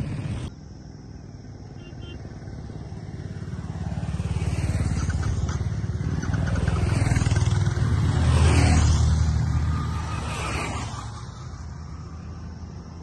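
Motorcycles passing close by one after another, the engine note building as they approach and dropping in pitch as each goes past, loudest about eight and a half seconds in.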